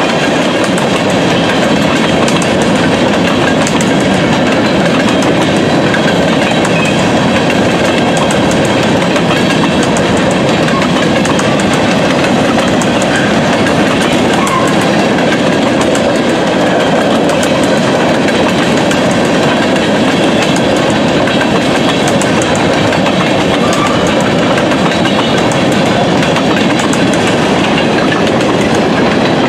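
Freight train of covered hopper cars rolling steadily past, a continuous rumble of steel wheels on rail with clickety-clack over the rail joints.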